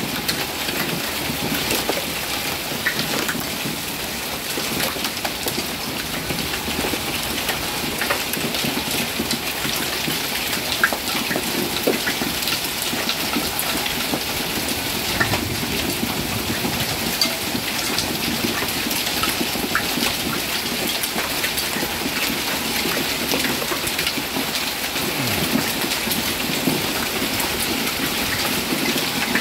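Hailstorm: hailstones pelting down in a steady dense patter, full of sharp ticks from individual stones striking.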